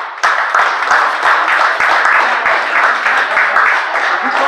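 A small crowd applauding: many hands clapping together, breaking out suddenly just after the start and carrying on steadily.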